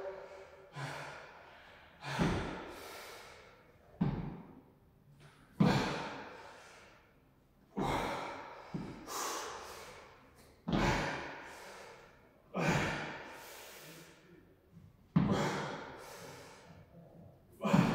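A man's forceful exhalations, about one every two seconds, as he works through a set of dumbbell floor presses; each breath starts sharply and trails off over about a second.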